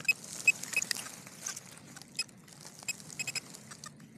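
A digging knife scraping and cutting through soil, roots and dry leaves: a run of crunching scrapes and sharp clicks, the loudest about half a second in.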